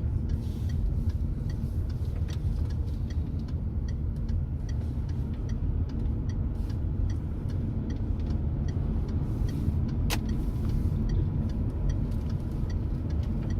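A car on the move, heard from inside the cabin: a steady low rumble of engine and tyre noise on the road. There is one sharp click about ten seconds in.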